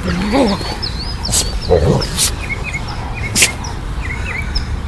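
Two dogs play-wrestling on the ground, giving two short rising growl-like calls, one near the start and one about two seconds in, with a few sharp clicks between. Small birds chirp over and over in the background.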